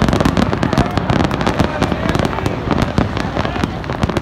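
Many fireworks going off at once at different distances: a dense, unbroken string of overlapping pops and bangs.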